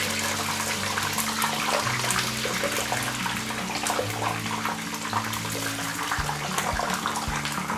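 Eggplant pieces deep-frying in very hot mustard oil in a kadai: a dense, steady sizzle full of fine crackles and pops.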